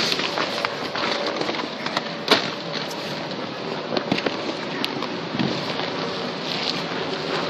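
Crinkling vinyl and irregular knocks and thumps from someone climbing and crawling through an inflatable obstacle course, the sharpest knock about two seconds in, over the steady hum of the air blower that keeps it inflated.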